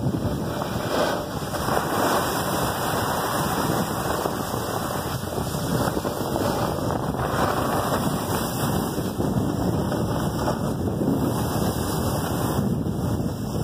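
Steady rushing wind noise on the microphone while moving downhill, mixed with the hiss and scrape of snowboard and ski edges sliding over packed snow.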